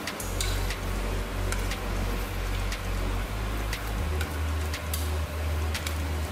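Thin slices of beef sizzling in a hot frying pan while wooden chopsticks stir them, tapping and clicking against the pan at irregular intervals. A deep low hum comes in just after the start and pulses evenly in the second half.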